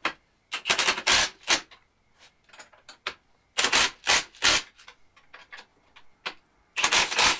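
Cordless impact driver hammering nuts down onto bolts through a steel frame, in three rattling bursts of about a second each with short pauses between.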